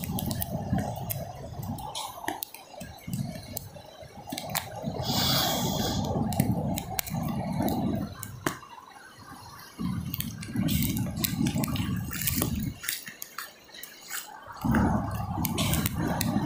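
Wind gusting against the phone's microphone in a low rumble that drops away briefly several times, over the wash of surf, with scattered sharp drips and splashes.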